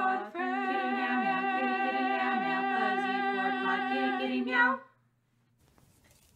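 Layered a cappella female vocals holding a final chord in harmony. They cut off about five seconds in, leaving near silence.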